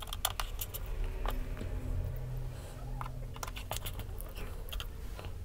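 Scattered light clicks and taps, in small clusters, from a small screwdriver and the plastic and metal parts of a laptop display panel as its screws are driven into the lid's mounting brackets, over a steady low hum.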